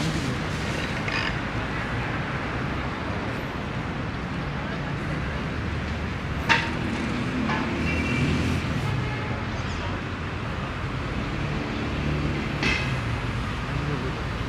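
City street traffic noise: a steady rumble of passing vehicles, with a couple of short, sharp knocks or clinks, one about halfway through and one near the end.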